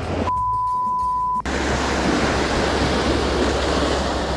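A steady high electronic beep lasting about a second, with all other sound dropped out under it, as in an edited-in bleep. Then an even rush of sea and wind noise on the microphone.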